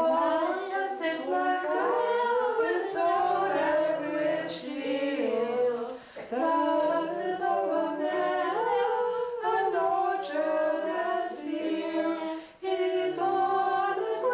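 A small group singing a song together without accompaniment, in several long phrases with short pauses for breath about 6 and 12 seconds in.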